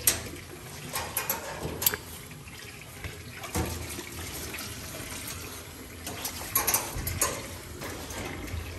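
Water running in a stainless-steel grooming tub, with a few splashes and knocks, near the start and again around two-thirds of the way in.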